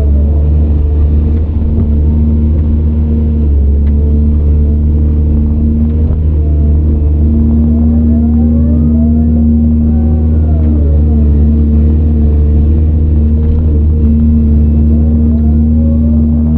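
CAT 395 hydraulic excavator's diesel engine running steadily under working load, with higher tones from the machine that rise and fall in slow arches a few times as it works.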